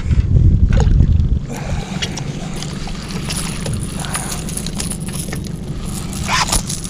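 Wind buffeting the microphone, heaviest for the first second and a half, then a steady low rumble with scattered small splashes and crackles. The loudest splash comes near the end.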